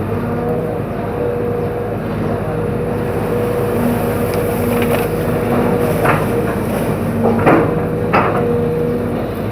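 Hydraulic excavator running steadily with a held whine, while bamboo cracks and snaps a few times in the second half as the machine breaks the clump.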